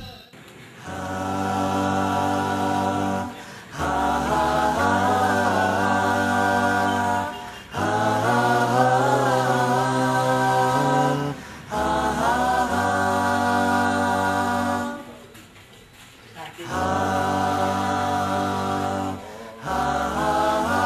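A cappella vocal group singing long held chords in phrases of about three to four seconds, with short breaks between phrases and a longer pause about two-thirds of the way through.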